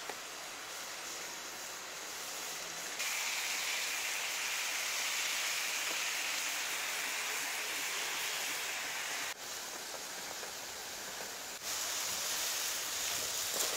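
Chopped mushroom filling sizzling in a wide steel pan over a fire, a steady even hiss. It jumps louder about three seconds in, drops back about two-thirds of the way through, and rises again near the end.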